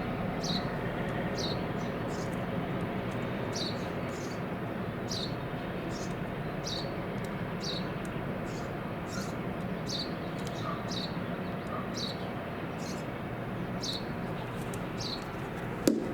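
Steady low hum of a boat's diesel engine running, with a short, high, falling chirp repeating about once a second over it, and a brief knock near the end.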